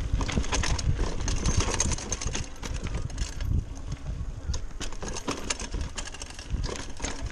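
Giant Talon 3 29er mountain bike rattling and clattering over rough dirt and rock trail at speed, a dense run of small knocks over a low rumble. It is loudest for the first two seconds, then eases slightly.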